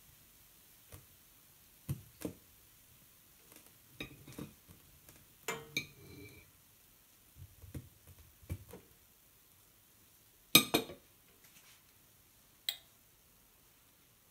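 Kitchen knife tapping and scraping against a ceramic plate as a peeled banana is cut into pieces. The sound is a series of soft, uneven taps and clinks; one clink about six seconds in rings briefly, and the loudest clack comes about ten seconds in.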